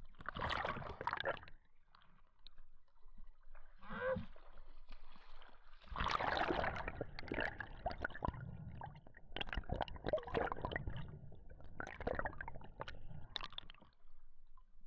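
Water sloshing, gurgling and splashing around a freediver swimming at the surface, in irregular bursts with sharp clicks, busiest in the second half.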